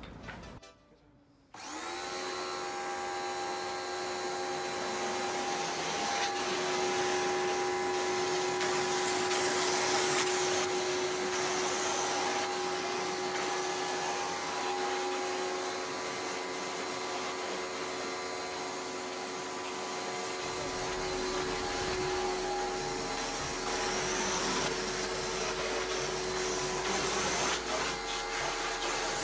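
Nilfisk high-pressure washer running steadily, starting abruptly about a second and a half in. Its motor and pump whine at a constant pitch under a hiss of water spraying through the roof-cleaner attachment.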